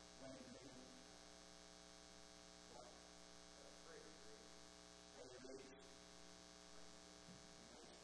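Near silence with a steady electrical mains hum, broken by a few faint, brief sounds.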